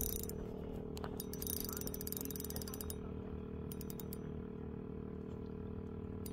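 Ultralight fishing reel being cranked to wind in line, a steady gear whir with a few sharp clicks.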